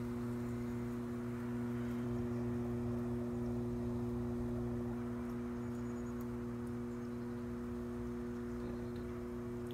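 Electric potter's wheel motor running steadily while the wheel spins, a constant hum of several held tones.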